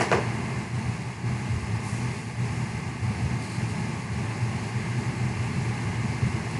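Steady low machine hum with no distinct strikes or changes.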